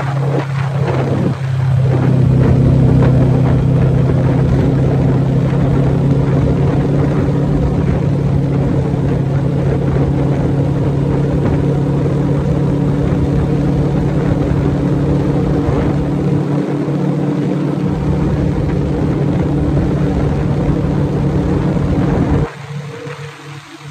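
Yamaha V-Max motorcycle's V4 engine running at a steady cruise, its drone holding one pitch, then dropping sharply in level near the end.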